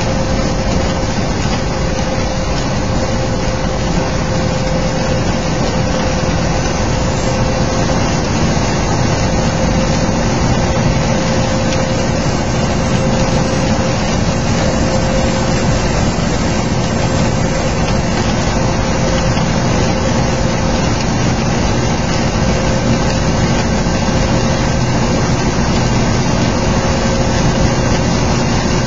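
Steady drone of a semi truck's engine heard from inside the cab at highway speed, under a constant hiss of heavy rain and wet road spray.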